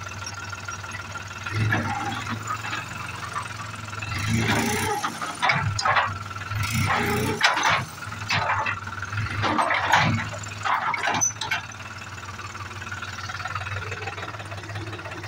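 New Holland tractor's diesel engine running steadily, with a constant low hum. In the middle, louder irregular noises come and go over it.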